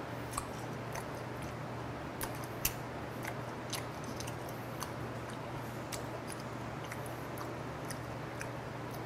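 Close-up chewing of raw yellow stingray sashimi: soft wet mouth sounds with scattered crisp clicks and crunches every second or so, over a steady low hum.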